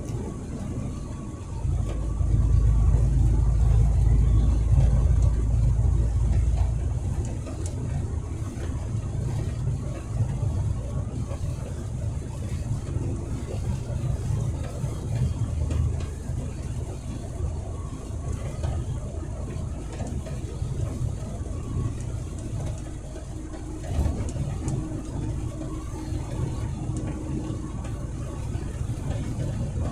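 Truck driving on the highway: a steady low engine and road rumble, with a heavier, louder rumble from about two to seven seconds in.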